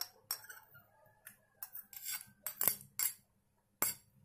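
Metal spoon scraping and clinking against glass dishes as grated carrot is scraped off a glass saucer into a glass bowl: an irregular run of sharp clicks and short scrapes.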